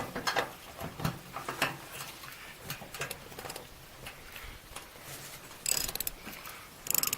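Ratchet wrench clicking as it tightens the nut on a wheelbarrow axle, with scattered knocks and two quick runs of rapid clicks near the end.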